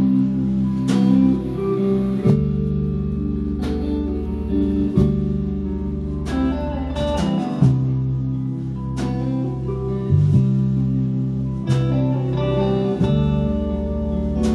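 Live band playing an instrumental passage with no vocals: electric guitars over drums and a heavy low end, with repeated cymbal crashes.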